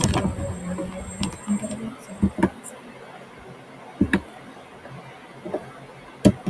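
Several sharp knocks and clicks at irregular intervals, the loudest one near the end.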